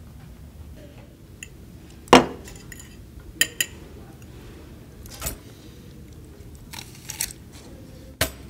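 Cutlery and tableware clinking at a lunch table: forks tapping and scraping on plates and cups knocking down on trays. It comes as several separate sharp clinks, the loudest about two seconds in, over a low steady room hum.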